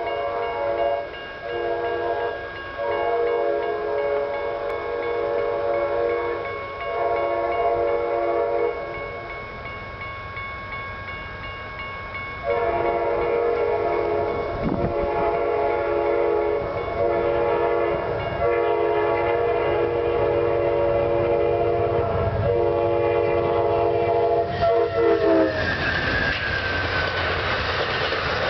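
Horn of a GE P42DC diesel passenger locomotive sounding for the crossing as the train approaches: several blasts, then one long blast held for about thirteen seconds whose pitch drops as the locomotives pass near the end. The horn gives way to the rumble and clickety-clack of bilevel Superliner passenger cars rolling past.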